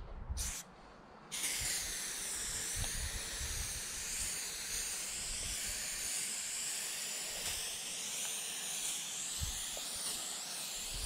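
Aerosol spray-paint can spraying: a short spurt, a brief pause, then a long continuous hiss starting about a second and a half in.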